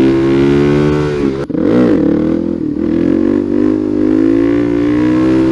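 Single-cylinder engine of a Suzuki DR-Z400 supermoto under hard throttle. About one and a half seconds in it drops out briefly with a quick rise and fall in pitch, like a gear change, then its pitch climbs steadily as it accelerates to lift the front wheel for a wheelie.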